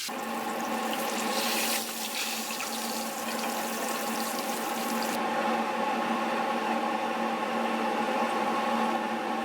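Chicken frying in hot oil: a steady rushing sizzle over a steady low hum, with the hiss getting duller about five seconds in.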